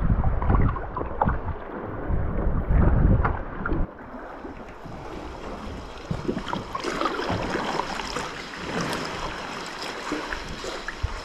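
Wind buffeting the microphone, a loud low rumble that cuts out abruptly about four seconds in as the kayak comes into shelter. After that, water laps and splashes around the kayak's hull and paddle blades with each stroke, a fizzing crackle of small splashes and drips.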